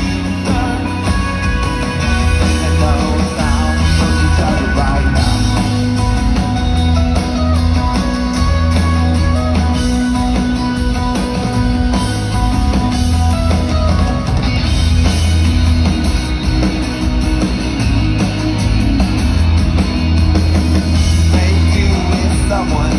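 Rock band playing live with vocals, heard from among the audience: drums, bass, guitars and keyboards at a steady, loud level.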